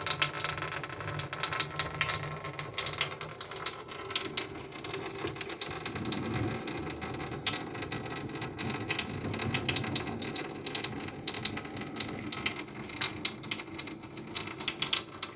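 Water sloshing and splashing with scattered clicks and knocks as warm water is rinsed around inside a water dispenser's reservoir.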